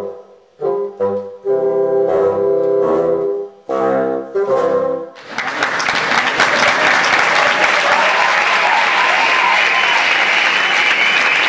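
Bassoons play the closing chords of a piece: short, separated chords of several low notes that end about five seconds in. Applause then breaks out and keeps going.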